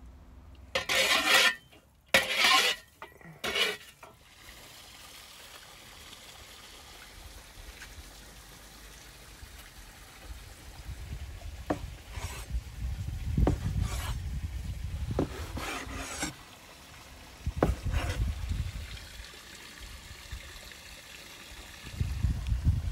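A few loud, short noises in the first few seconds, then a cleaver cutting a roll of dough on a floured wooden board: several sharp knocks of the blade on the wood over dull thuds and rubbing. Near the end, hands rubbing and pressing a piece of dough into a ball.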